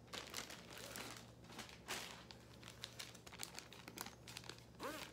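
Faint crinkling and rustling of something being handled, with irregular light clicks, over a low steady hum.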